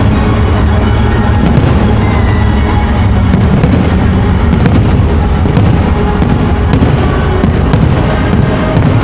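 Aerial fireworks bursting with many sharp bangs, coming thick and fast in the second half, over loud music.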